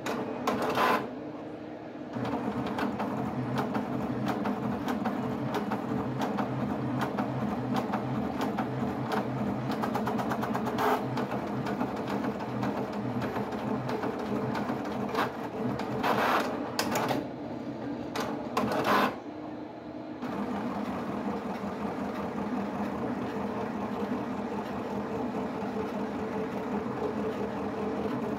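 HP 7550A pen plotter drawing a demo plot: its drive motors whir continuously through quick back-and-forth pen and paper moves, with a few brief louder bursts of fast movement.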